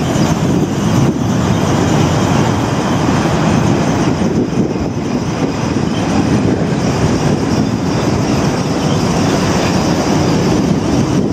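Container freight train's wagons rolling past, a steady rumble of wheels on the rails.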